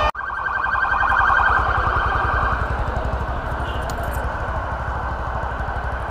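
Emergency-vehicle siren warbling rapidly, strongest in the first couple of seconds and fading after about three, over the low, steady running of a motorcycle being ridden.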